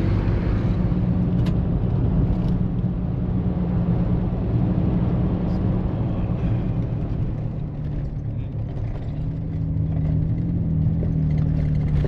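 Vehicle engine running steadily at cruising speed, with tyre noise rolling over a gravel road, heard from inside the cab.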